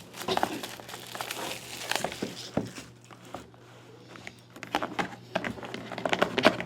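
Plastic shrink wrap crinkling and crackling as it is torn and crumpled off a sealed trading-card hobby box, in two spells with a quieter pause in the middle.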